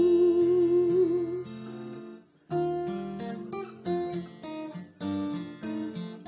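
A man's last sung note, held with a slight waver over acoustic guitar, ends about a second and a half in. After a brief pause, the acoustic guitar goes on alone with a series of strummed and plucked chords.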